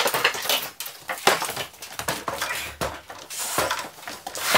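Irregular knocks and clatter of a cedar-framed chicken-wire cage being carried and handled.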